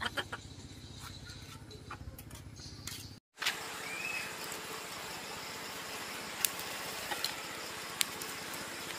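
Charcoal being lit in a metal barbecue grill after the fire died out: a steady rushing hiss with a few sharp crackles. A low hum comes before it for about the first three seconds.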